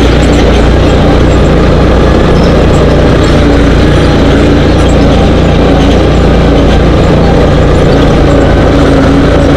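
Dune buggy engine running steadily as the buggy drives over sand, loud and unbroken.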